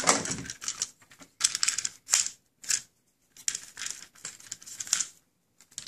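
Small hard plastic toy pieces being handled and fitted together: a few short rustling and clicking bursts, with a longer run of handling noise in the second half.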